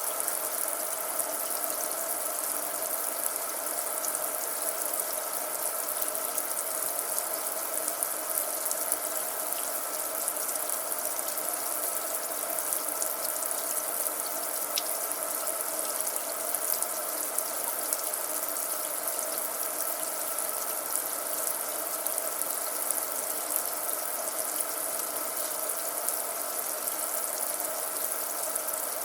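Water running from a tap into a sink: a steady, unbroken splashing rush with fine crackle throughout.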